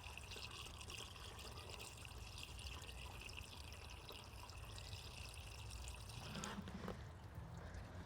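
Windshield washer fluid poured into a plastic washer reservoir, a steady faint trickle that stops about six seconds in.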